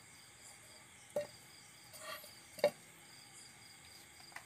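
Two short knocks about a second and a half apart, the second louder, as an aluminium cooking pot is handled and set down on the floor. A faint steady high-pitched drone runs underneath.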